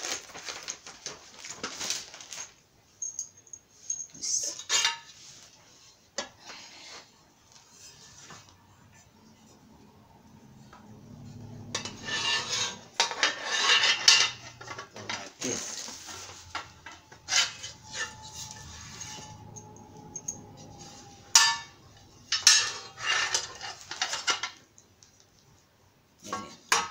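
Loose metal bolts and nuts clinking as they are handled and sorted, in irregular bursts, with crinkling of the plastic hardware bags.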